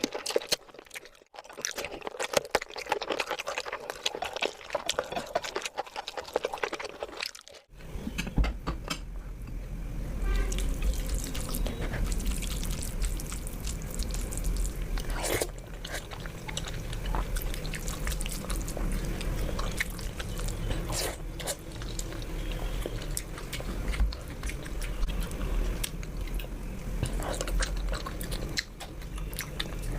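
Close-miked eating sounds: wet clicks and smacks of curry and rice being handled and chewed. A steady low rumble comes in about eight seconds in under the clicks.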